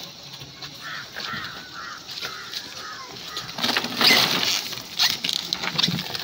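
Crushed ice and small fish tipped out of a woven plastic sack onto a wooden table: a noisy, sliding rush that starts about halfway through, with several sharp clatters.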